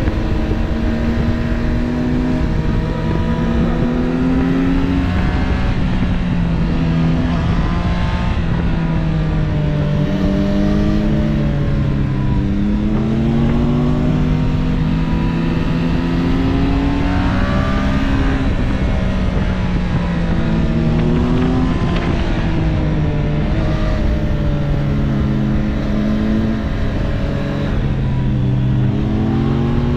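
Onboard sound of a Triumph Street Triple 765 RS's inline-three engine on a stock exhaust, ridden hard through bends. The engine pitch climbs and falls again and again as the throttle opens and rolls off, over steady wind rush.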